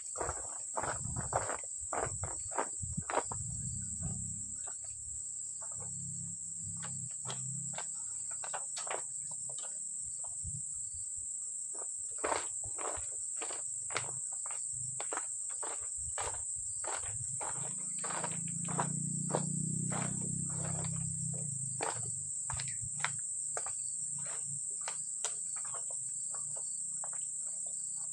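A steady, high-pitched drone of tropical insects, with many short, irregular clicks and knocks as loose oil palm fruit is gathered by hand.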